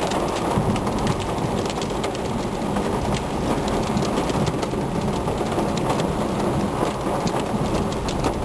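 Heavy rain mixed with pea-sized hail pelting a vehicle: a steady rush with many sharp, irregular ticks of hailstones striking.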